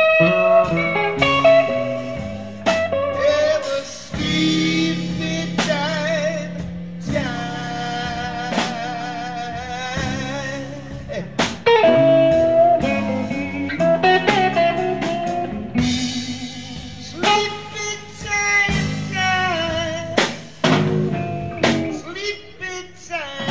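Live blues-rock power trio playing an instrumental passage: an electric guitar lead with wavering vibrato and bent notes over bass guitar and drum kit.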